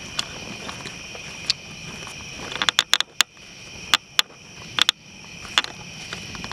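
Large bonfire crackling, with sharp irregular pops that bunch up about halfway through, over a steady high chorus of night insects.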